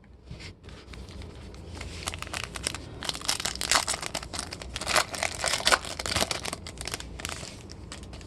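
Foil wrapper of a Topps Chrome trading card pack being torn open and crinkled, a dense run of crackles that builds over the first couple of seconds and is loudest in the middle.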